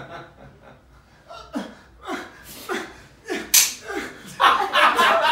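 A live spring-loaded mousetrap snapping shut once, sharp and sudden, about three and a half seconds in, between short bursts of audience laughter; louder laughter follows the snap.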